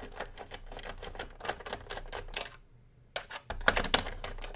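Rapid small clicks and taps from taking a UPS unit apart by hand, working at its case screws, followed about three seconds in by a few louder sharp clacks.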